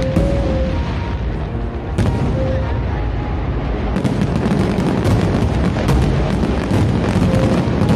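Fireworks display: a continuous rumble of booms and crackling bursts, with sharp bangs about two, four and six seconds in.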